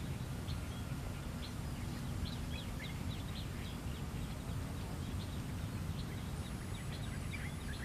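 Birds chirping in short, quick calls several times a second over a steady low outdoor rumble.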